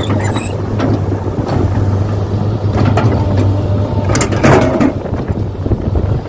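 Excavator at work: a steady engine drone with scraping and clattering, loudest about four to five seconds in.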